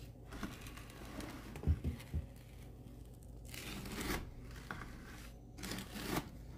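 Wooden stir stick pushed through a bucket of frozen paint, which crunches like ice: three dull knocks about two seconds in, then two longer crunching scrapes.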